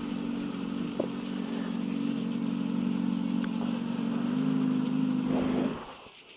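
Motorcycle engine idling steadily, then switched off near the end, the sound stopping abruptly.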